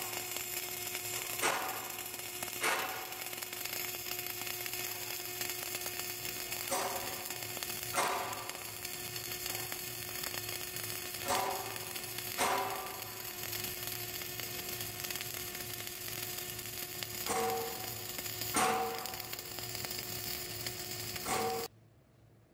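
Flux-cored arc welding arc running: a steady sizzle with a steady hum underneath and occasional louder pops. It cuts off suddenly about a second before the end as the arc is broken.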